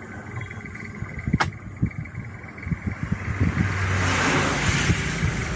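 Toyota Kijang Kapsul LGX's AC blower fan being switched on: a click about a second and a half in, then a rush of air that builds from about three and a half seconds and stays loud, over low irregular knocks.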